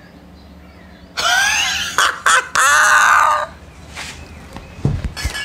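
A man bursts into loud, hearty laughter about a second in, in two long bursts with a short break, then it dies down with a couple of low knocks near the end.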